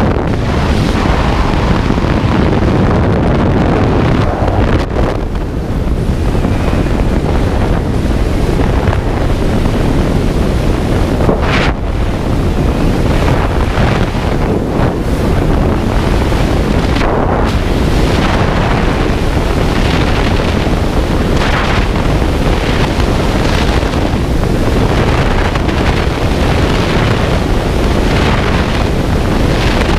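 Freefall wind blasting across a skydiver's camera microphone, a loud continuous rush that swells and gusts.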